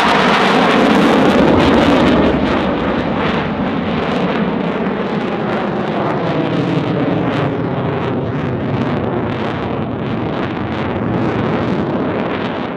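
Saab JAS-39C Gripen's single Volvo RM12 turbofan, a loud jet roar as it passes and pulls up into a steep climb. It is loudest in the first two seconds, then eases off slightly, with a rough crackle running through it.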